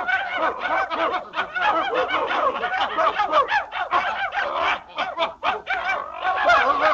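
A chorus of many animals calling at once: dense, overlapping short yelping calls that rise and fall in pitch, with no pause.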